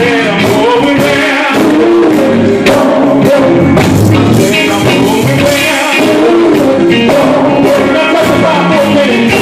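Male gospel group singing live, a lead singer on a microphone with the group backing him, over band accompaniment with a steady beat.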